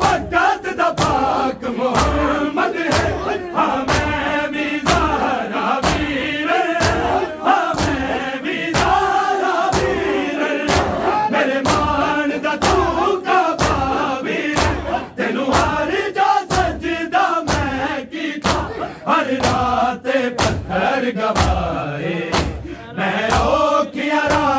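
A group of men chanting a Punjabi noha together, over rhythmic chest-beating (matam): sharp hand slaps about twice a second keeping time with the chant.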